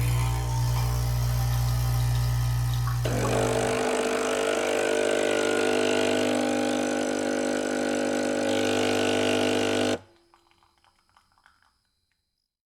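Coffee machine running with a steady mechanical drone. A low hum gives way about three seconds in to a higher, even drone, which stops abruptly about ten seconds in, followed by a few faint small noises.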